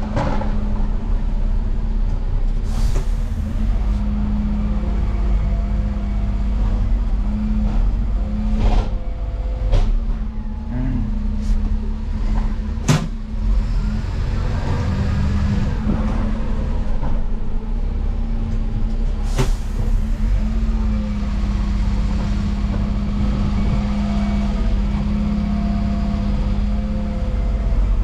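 Cab interior of a 2018 Dennis Eagle Elite 6 refuse lorry: the diesel engine runs with a steady low drone, and a few sharp clicks and knocks come from the cab now and then.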